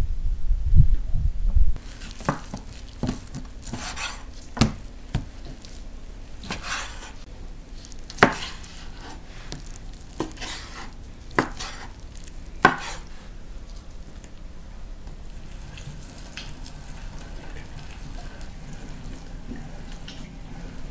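A loud low rumble for about the first two seconds, then a large knife cutting cooked beef tongue on a wooden cutting board, the blade knocking sharply on the board about ten times. Near the end, a hand-cranked meat grinder turning quietly.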